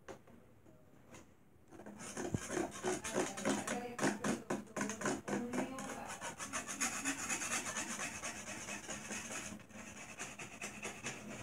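Rapid scratching and rubbing close to the microphone, starting about two seconds in and easing off a little near the end.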